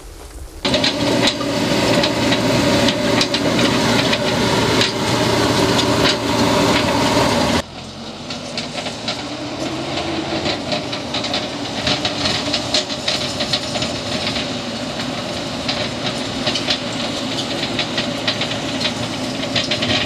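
MST backhoe loader's diesel engine running, loud and steady for the first several seconds. After an abrupt change about seven and a half seconds in it is quieter, with a stream of small crackles and scrapes as the front bucket pushes soil and brush along the dirt track.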